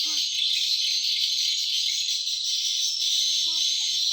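Dense, steady chorus of insects, a continuous high-pitched buzz at an even level.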